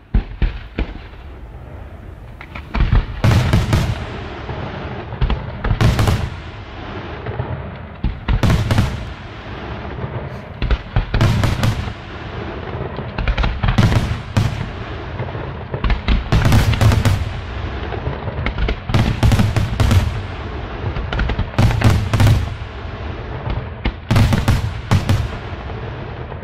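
Aerial firework shells bursting in rapid succession: sharp booms in clusters every second or two, with a continuous crackle and rumble between them.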